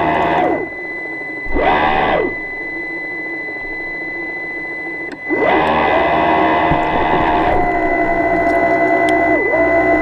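Electric motor whine in bursts, spinning up, holding a steady pitch and winding down: it falls away about half a second in, comes back briefly around two seconds in, then spins up again just after five seconds and runs on with a short dip near the end. A steady high-pitched tone sits underneath.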